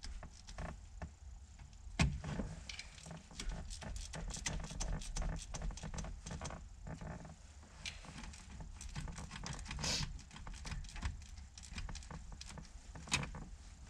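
Socket ratchet clicking and metal tools clinking as the short-throw shifter's mounting bolts are tightened down in a cross pattern, with a couple of louder knocks, one about two seconds in and one near the end.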